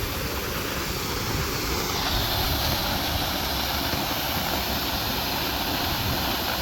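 Waterfall: a steady roar of falling water, growing a little louder and hissier about two seconds in.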